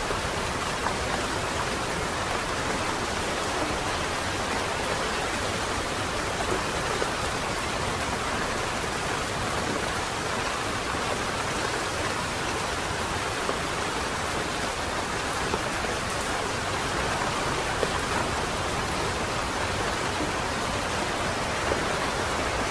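Steady rain falling on wet pavement, an even hiss with now and then a sharper drop tick.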